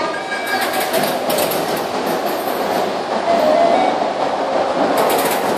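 Tünel underground funicular car running along its rails in the tunnel station: a steady rail rumble with rattle, and short bursts of crackle about half a second in and again near the end.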